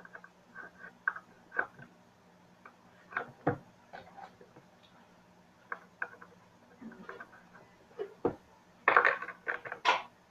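Small hard pieces clicking and tapping as they are handled and set into the compartments of a makeup box, in irregular single knocks with a quick flurry of clatter near the end.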